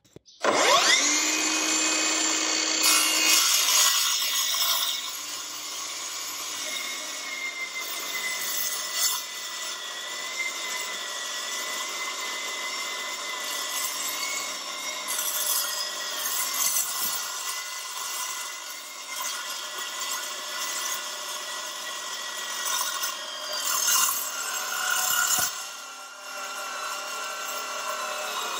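Milwaukee M18 Fuel 2982-20 8-inch metal-cutting circular saw starting up about half a second in, louder for the first few seconds. It then cuts steel plate with a steady high whine over the rough rasp of the blade in the metal.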